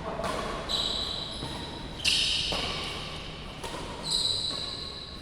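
Badminton rally in a large sports hall: rackets strike the shuttlecock about four times, each hit followed by high ringing squeaks that echo in the hall.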